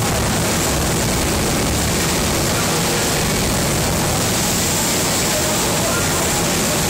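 A jet engine runs steadily at full power with its afterburner lit, giving a loud, unbroken rushing roar. Faint crowd voices sit underneath.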